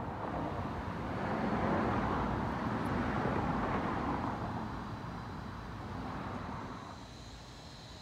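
A vehicle passing by: a rushing noise that swells over the first couple of seconds, holds, and fades away over the last few seconds.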